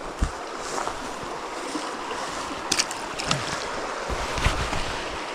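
Mountain stream running steadily, with a few short clicks and a low thump over it.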